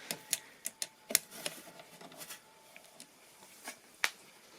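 Light clicks and taps of small computer parts being handled while an M.2 SSD and its heatsink are fitted to a motherboard: a scattered series of sharp ticks, the loudest a little over a second in.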